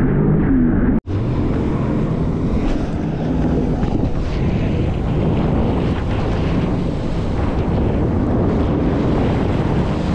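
Sea-Doo GTX 230 personal watercraft running under way, its three-cylinder Rotax engine humming beneath heavy wind noise on the microphone and rushing water. The sound drops out for an instant about a second in, after which the wind and water rush dominate over the engine.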